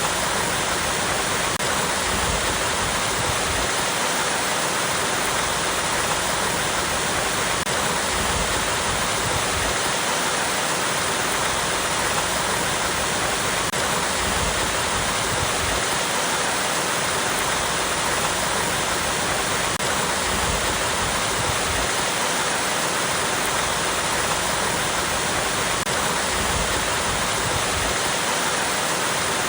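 Small waterfall cascading over rocks: a steady, unbroken rush of falling water.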